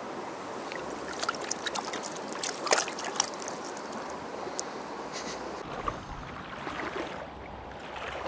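A small creek running over stones, with a few light splashes about one to three seconds in as a cutthroat trout is let go by hand in the shallow water.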